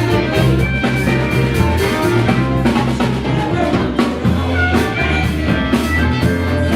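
Band music in a rock-blues style: a drum kit keeping a steady beat under electric guitar and a sustained bass line.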